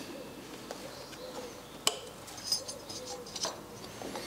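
Light clicks and ticks of a rubber V-belt and metal engine brackets being handled as the belt is worked onto the pulleys, with a sharp click about two seconds in and another near the end.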